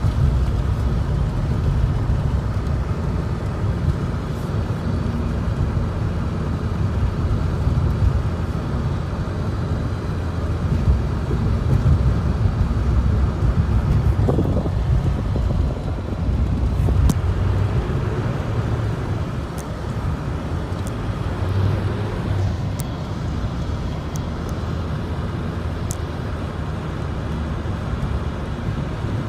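Car driving on a snowy, slushy road: a steady low rumble of road and tyre noise, with a few faint clicks in the second half.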